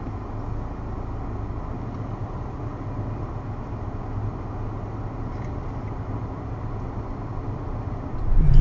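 Steady engine and tyre noise of a car driving, heard from inside the cabin.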